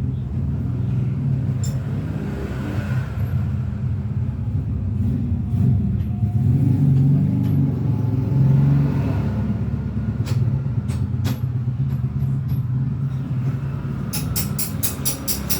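A motor running with a steady low rumble, with scattered clicks and knocks, and a quick run of clicks near the end.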